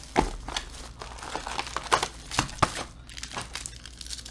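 Foil trading-card pack wrapper crinkling and tearing in the hands as a Panini Prizm football pack is opened: irregular crackles with a few sharper snaps, after a dull knock near the start.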